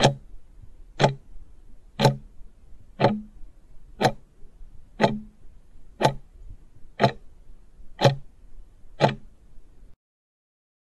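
Countdown timer sound effect: a clock ticking once a second, ten ticks in all, then stopping.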